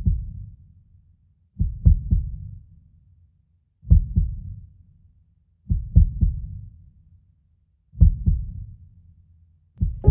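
Slow heartbeat sound effect: deep double thumps about every two seconds, each dying away before the next.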